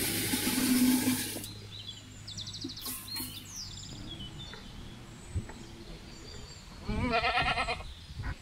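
Dry rice poured into a pot of boiling water, a hissing rush for about the first second and a half. Near the end, a goat bleats once, a short wavering call.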